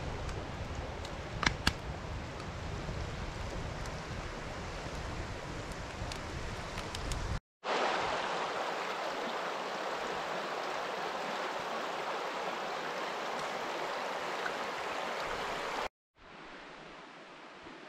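Shallow creek rushing over rocks, a steady even hiss of flowing water. In the first part a wood campfire in a steel fire ring adds a couple of sharp pops, about a second and a half in. The water sound is at its loudest and closest in the middle section, and falls to a fainter steady hiss near the end.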